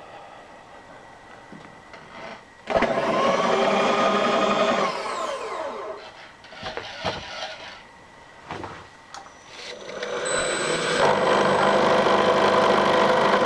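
A machine tool's electric motor starts abruptly, runs steadily for about two seconds, then winds down with falling pitch. After a few clicks and knocks it starts again about ten seconds in and runs at speed until it cuts off suddenly at the end.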